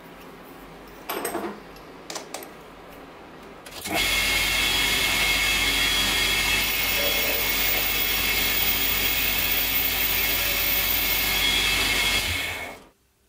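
Small metal lathe running and cutting a brass tube held in its chuck: a steady machining noise with a high whine, starting about four seconds in and stopping shortly before the end. A couple of brief handling knocks come before it.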